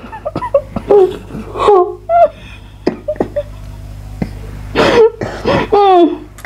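Wordless vocal reactions to a spoonful of food: moans and squeals gliding up and down in pitch, with gasps and laughter, loudest about a second in and again near the end.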